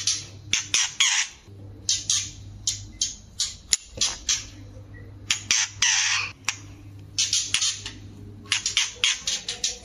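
White-rumped shama giving harsh chattering calls: quick runs of rattling notes, with longer harsh calls about a second in and again near six seconds, over a steady low hum.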